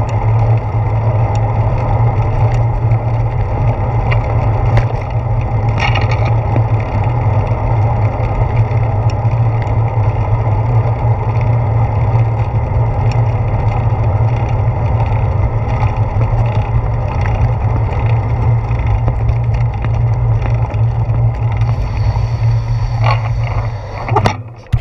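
Steady low rumble of wind and tyre noise on a handlebar-mounted camera while a bicycle rides over pavement, with a few small knocks from bumps. It drops off sharply near the end as the bike comes to a stop.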